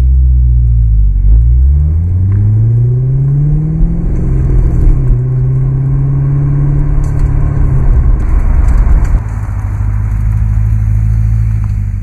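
2007 Corvette C6 Z06's 7.0-litre LS7 V8 heard inside the cabin, accelerating with its pitch rising. A gear change comes about a second in, the revs climb again to about four seconds, then the engine holds a steady note and settles lower from about eight seconds.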